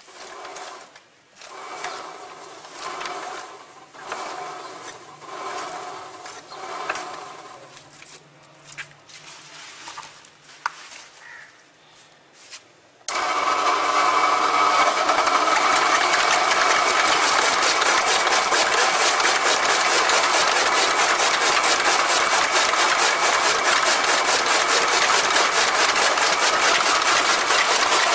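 Flywheel chaff cutter (toka machine) chopping green fodder stalks. For the first half it runs softer and unevenly, swelling about once a second. About halfway through it turns suddenly into a loud, steady, rapid chopping clatter.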